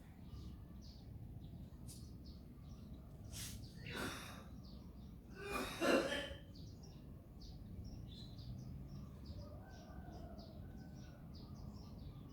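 Two coughs about two seconds apart, the second the louder, over steady small chirps from birds.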